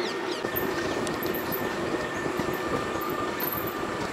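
Safari jeep driving along a dirt track: a steady engine drone under a continuous rumble, with the vehicle rattling and knocking irregularly over the rough ground.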